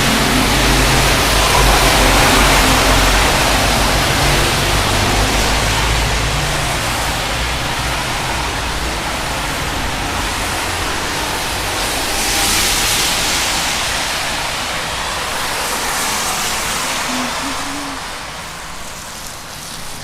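Road traffic on a wet road: tyre hiss with engine rumble, one vehicle passing at first and another swelling about twelve seconds in, dying away near the end.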